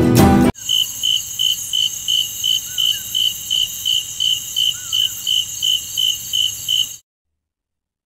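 Crickets chirping in a steady, even rhythm of about two to three chirps a second over a continuous high-pitched trill, a night-time ambience. It cuts off suddenly about seven seconds in.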